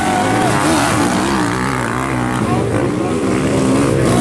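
Several sidecar motocross outfits' motorcycle engines revving hard as they pass through a sandy turn, their overlapping pitches rising and falling with the throttle.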